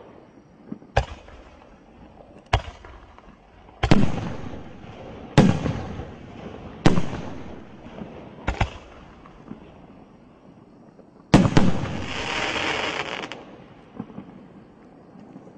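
Large-calibre aerial firework cake firing shells, a sharp bang about every second and a half, each followed by a rolling echo. About eleven seconds in comes the loudest bang, followed by about two seconds of dense crackling.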